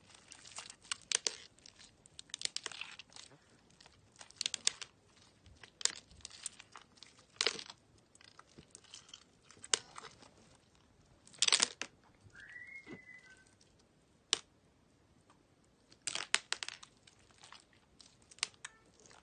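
Hands kneading and pulling sticky homemade glue slime that is clinging to the fingers: irregular bursts of short, sharp sticky clicks and pops. A brief high squeak a little after halfway.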